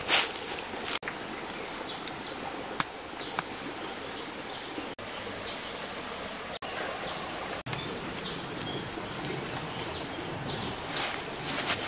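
Steady high-pitched drone of forest insects, with a few brief clicks and rustles. The sound cuts out for an instant several times.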